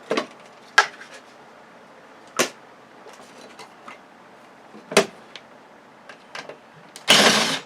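Scattered clicks and knocks of plastic and metal television parts being handled and pulled apart, with a louder harsh noise lasting about half a second near the end.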